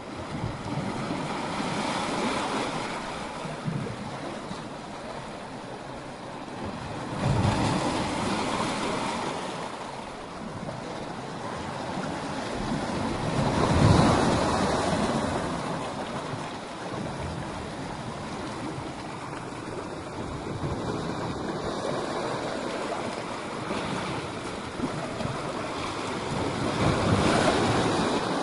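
Sea waves surging and breaking against rocks: a continuous rush of surf that swells with each incoming wave, loudest about halfway through.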